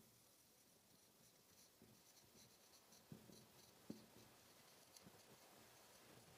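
Near silence with faint writing sounds: light scratching and a few soft taps, the clearest about three and four seconds in.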